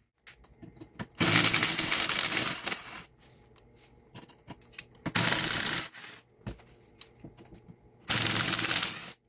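Cordless impact driver hammering a 10 mm fender bolt in three bursts, the first the longest, with small clicks and clatter of tool and socket between them.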